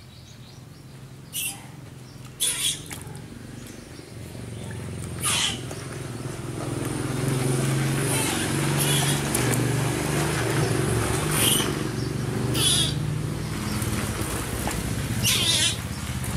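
A motor engine running, growing louder from about six seconds in, with short sharp high sounds every few seconds.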